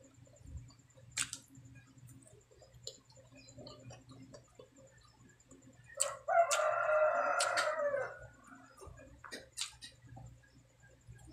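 A rooster crows once, one long call of about two seconds starting some six seconds in, the loudest sound here. Around it are scattered soft clicks and smacks of eating by hand.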